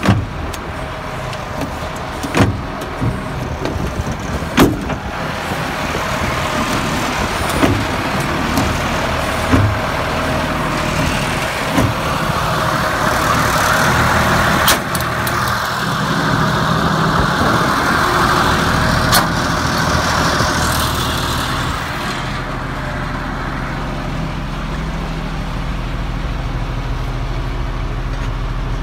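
Dresser 530 wheel loader's diesel engine idling steadily, with a few sharp knocks over the first two-thirds. It grows louder and hissier for several seconds midway, then settles to a steadier, lower hum near the end.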